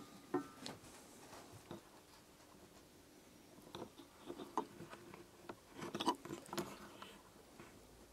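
Faint scattered clicks and rustles of handling, clustered about four and six seconds in.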